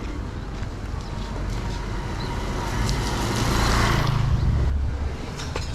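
A motor vehicle passing close by on the street: its noise swells to a peak about four seconds in and fades away, over a steady low traffic rumble.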